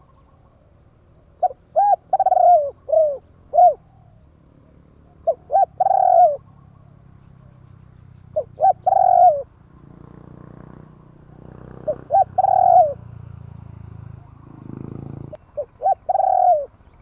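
Spotted dove cooing: a short phrase of two to four coos, repeated five times about every three to four seconds. A low rumbling noise runs under the calls in the second half.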